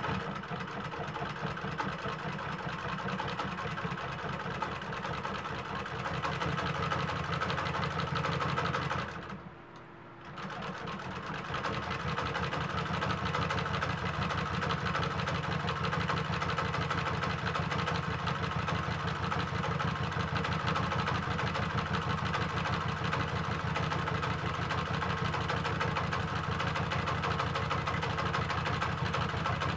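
Consew industrial sewing machine running at a steady, fast stitch rate, sewing through a leather belt overlaid with cobra skin. It stops for about a second roughly nine seconds in, then starts again and keeps stitching.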